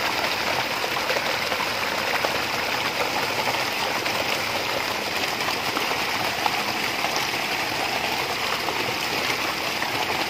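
Stream water rushing steadily through a mesh fish net set in the current, an even, unbroken sound.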